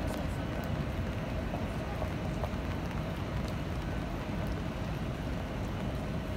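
Steady rain falling on a wet city street, with scattered drops ticking close by and a low rumble underneath.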